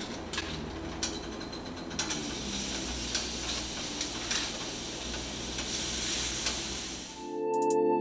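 Seasoned chicken pieces sizzling in hot olive oil in a frying pan as they are laid in, with light clicks and taps. Music comes in near the end.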